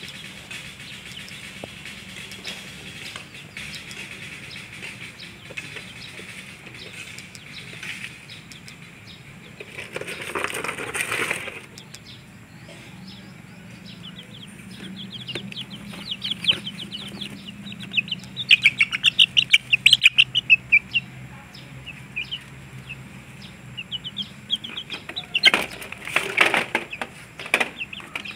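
Month-old ayam trondol chickens peeping in quick runs of high chirps, loudest from the middle of the stretch onward. Two short noisy bursts of flapping and scuffling break in, one about ten seconds in and one near the end.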